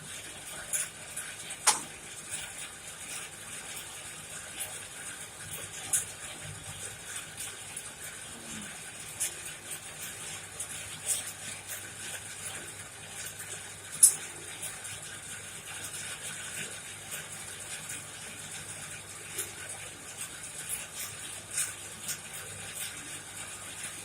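Coal forge fire burning with a steady rush, broken by scattered sharp crackles and pops, the loudest about two seconds in and again near the middle.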